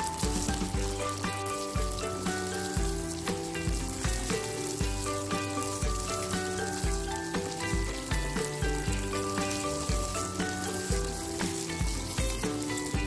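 Chicken breast pieces sizzling as they fry in margarine in a wok, stirred with a wooden spatula. Background music with a steady beat plays over it.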